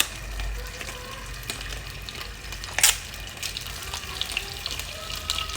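Ghee sizzling in a pot with whole bay leaves frying in it, a steady crackle, with one sharp clink a little before three seconds in.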